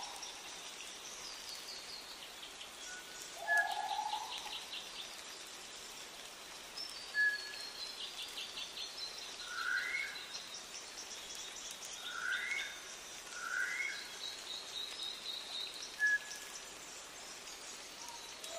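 Reconstructed New Zealand bush birdsong. Small songbirds give high trills and ticking notes throughout, with a few short whistles and three rising mid-pitched calls between about ten and fourteen seconds in. One low, slightly rising call about three and a half seconds in stands for the South Island giant moa.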